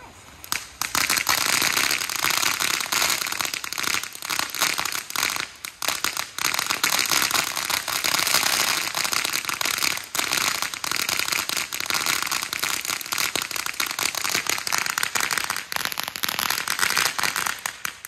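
Fireworks crackling: a long, dense run of rapid small pops that starts about half a second in and keeps up without a break until it thins out at the end.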